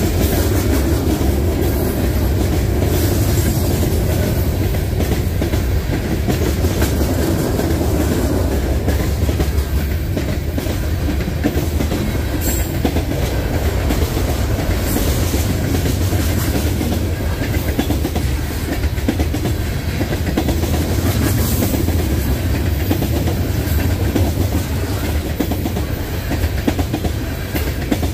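Freight train cars rolling past, a loud, steady rumble of steel wheels on the rails that keeps up without a break.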